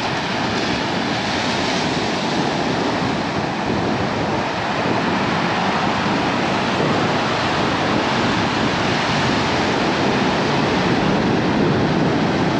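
Surf of a calm Atlantic Ocean breaking and washing up the beach, a steady rushing noise with no distinct crashes.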